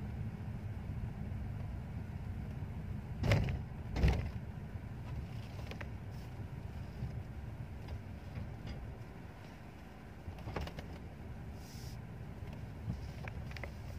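Low steady rumble inside the cabin of a Mercedes-Benz S-Class moving slowly, with two loud thumps less than a second apart a few seconds in and a few faint clicks later.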